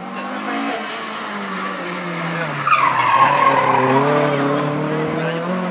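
Rally car at full stage pace through a corner: the engine note drops, tyres squeal loudly from about three seconds in, and the engine note climbs again as the car accelerates out.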